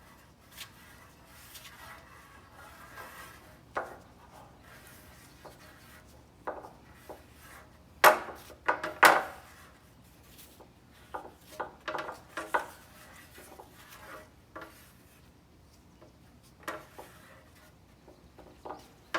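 Body filler being worked with a spreader: irregular scraping and tapping, with two sharp knocks about 8 and 9 seconds in.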